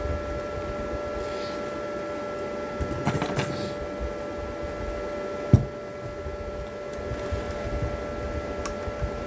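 TIG welding at 100 amps with a Toolion MIG-180 Pro inverter welder: a steady whine over a hissing buzz, with a short crackly burst about three seconds in and a sharp knock about five and a half seconds in.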